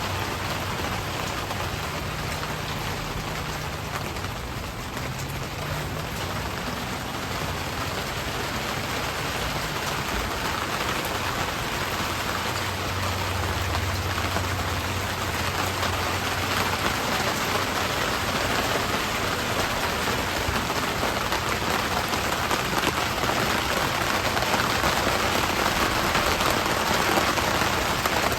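Steady rain falling on surfaces, growing heavier toward the end.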